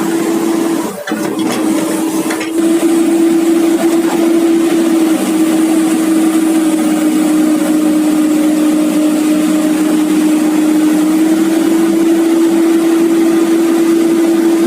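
Komatsu PC200-8 hydraulic excavator running, with a steady high whine held under load.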